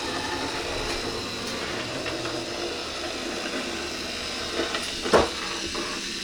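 Small electric motor of a battery-powered toy train whirring steadily as it runs along the track, with one sharp click about five seconds in.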